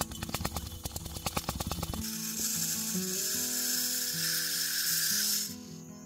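Bird seed (sunflower seeds and millet) rattling and clicking against a glass jar, then a steady hiss of small seed pouring through a plastic funnel into a glass bottle. The pouring stops abruptly about five and a half seconds in.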